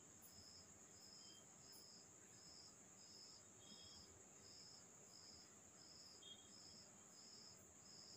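Near silence with faint insect chirping: short high chirps repeating evenly, about three every two seconds, over a steady high hiss.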